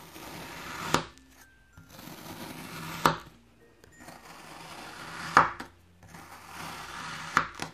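Knife cutting through a molded block of kinetic sand four times: each stroke is a gritty crunch about a second long that ends in a sharp knock as the blade meets the table.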